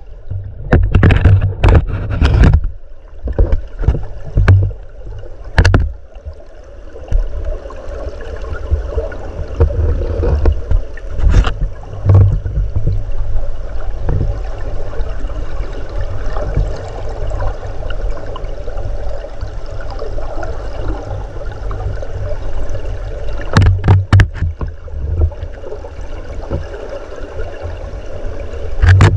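River current rushing and gurgling as heard by a submerged camera, a steady muffled low rumble. Sharp knocks come in clusters in the first few seconds and again about 24 seconds in.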